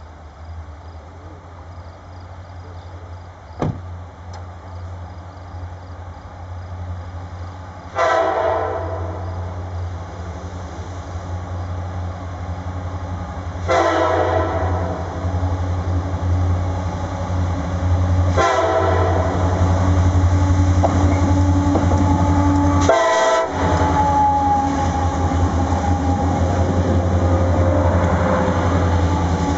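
Freight train led by an EMD SD60 diesel locomotive sounding its horn in the grade-crossing pattern: long, long, short, long. The last long blast drops slightly in pitch as the locomotive passes. Under the horn, the diesel engines' rumble grows steadily louder as the train approaches and goes by.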